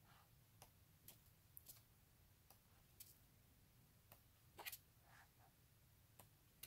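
Faint paper rustles and soft clicks of glossy photo book pages being turned by hand, over near silence; one rustle a little past the middle is the loudest.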